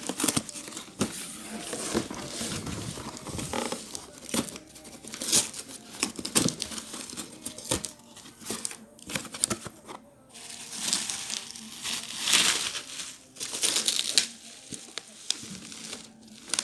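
Packaging being unwrapped: irregular crinkling and rustling with sharp crackles and some tearing, in louder bursts several times.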